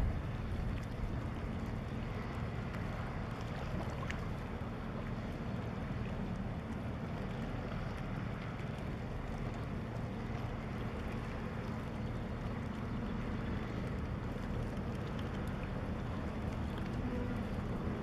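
Steady low diesel drone of an inland motor tanker passing close by, with some wind rumble on the microphone.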